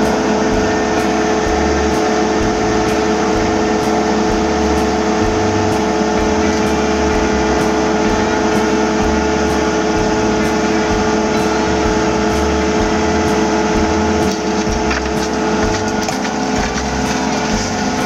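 Excavator's diesel engine running steadily, heard from inside the cab, with a steady whine over a low uneven rumble.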